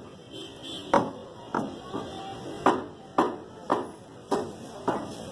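A heavy butcher's cleaver chopping mutton on a round wooden chopping block: a steady run of about eight sharp strikes, roughly two a second, starting about a second in.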